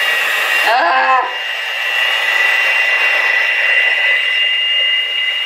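Handheld electric mixer running on medium speed, a steady high whine, its beaters working brown sugar and stiff, unsoftened margarine in a glass bowl.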